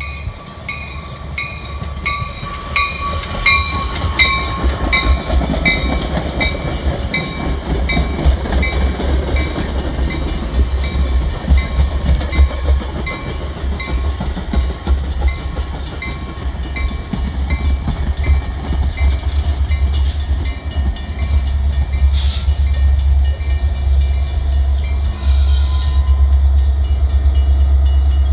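Metra commuter train of bilevel gallery cars rolling past with a steady low rumble, louder near the end. A bell rings about twice a second at the start and fades away about twenty seconds in.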